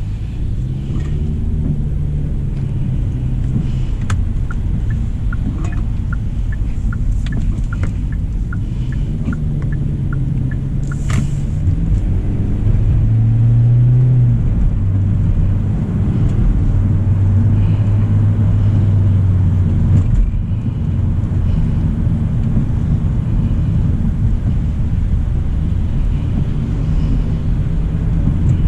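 Road and engine noise of a 2025 Hyundai Elantra SEL driving in the rain: a steady low rumble with a drone that rises and falls in pitch. For several seconds before the middle there is a run of light, evenly spaced ticks, about one and a half a second, and one short sharp rushing noise.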